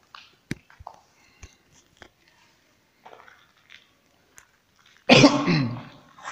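A few scattered faint clicks and knocks, then about five seconds in a man coughs loudly.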